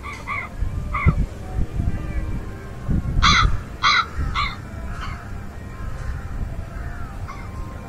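Crows cawing: a few short caws, then a louder run of three about three seconds in, with faint small-bird chirps after. A gusty low rumble of wind on the microphone runs underneath.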